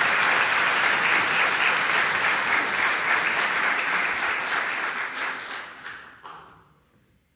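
Audience applauding, the clapping thinning out and dying away about six to seven seconds in.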